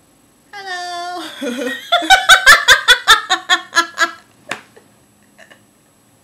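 Two women laughing hard together. A drawn-out laughing note starts about half a second in, then a run of quick, rhythmic ha-ha pulses that fades out after about four seconds.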